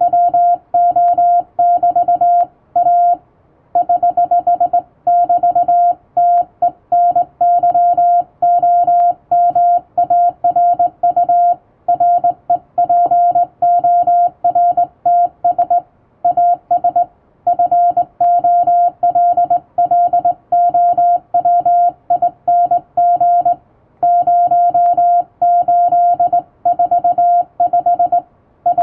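Morse code keyed by hand on a straight telegraph key: a steady sidetone of about 700 Hz switched on and off in quick dots and dashes, in groups broken by short pauses.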